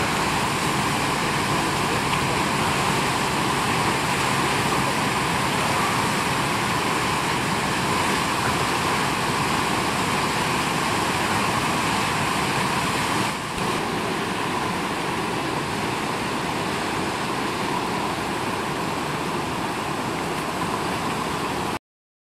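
Steady rushing roar of whitewater rapids churning through a standing wave, with a brief dip about two-thirds of the way through; it cuts off suddenly near the end.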